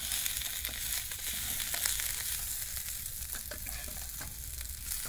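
Chopped onion frying in fat in a camping cauldron, a steady sizzle with a few light clicks and knocks from stirring.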